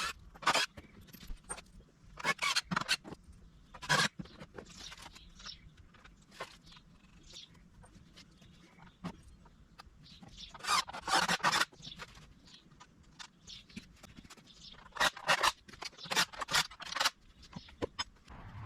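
Scattered knocks, clatters and scrapes in irregular clusters, with short quieter gaps between them.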